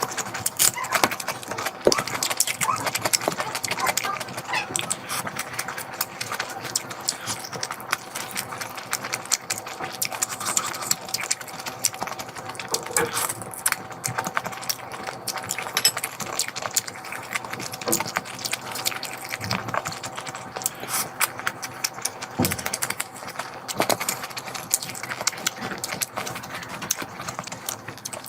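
Close-miked eating sounds: wet chewing and lip smacking, a dense run of small sharp clicks, over a faint steady hum.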